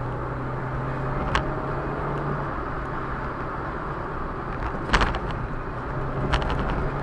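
Car driving on a rough road, heard from inside the cabin: steady engine hum and tyre rumble as it speeds up. A loud knock comes about five seconds in, with lighter knocks about a second in and around six seconds in.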